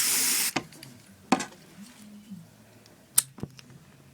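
Aerosol hairspray can sprayed in one short hissing burst of about half a second, followed by two sharp clicks about two seconds apart.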